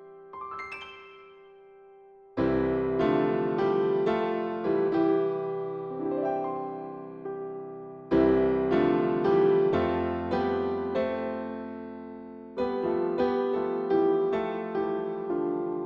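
Solo piano playing slow, gentle music. A few soft notes open it, then full chords are struck about two seconds in, again around eight seconds and near thirteen seconds, each left to ring and fade under lighter melody notes.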